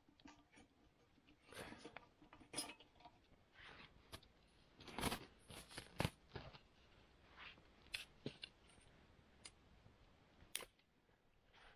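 Small dry sticks being handled and snapped by hand: scattered sharp snaps and clicks, the loudest about five and six seconds in.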